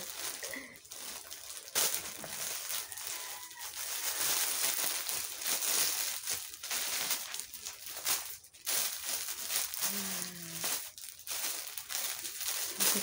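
Plastic packaging rustling and crinkling as a plastic courier pouch is opened and an item in clear plastic wrap is pulled out and handled.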